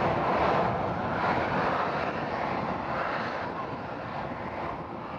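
Boeing 787-9 airliner's jet engines heard from afar as a steady rushing noise, fading steadily as the aircraft slows on its landing rollout.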